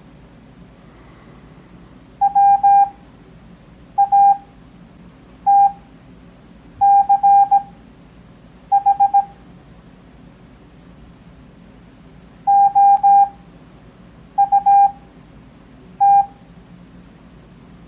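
Morse code (CW) practice tone: a single steady beep keyed into dots and dashes, sending about eight separate letters with long gaps between them. This is Farnsworth timing, with characters sent at 17 words per minute and spaced out to 6 words per minute. A faint steady hum sits underneath.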